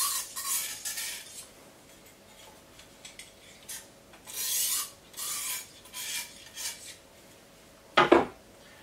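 Short rasping strokes of a 400-grit sharpening stone drawn along the edge of a large steak knife held in a guided sharpening clamp, alternating side to side to cut off the burr. The strokes come in two runs with a pause between. Near the end there is one sharp, louder knock.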